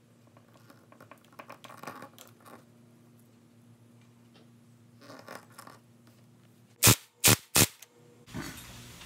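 Light scraping and rustling as a hose is worked in a dirt bike's fuel tank filler, then three sharp, loud knocks in quick succession about seven seconds in, over a steady low hum.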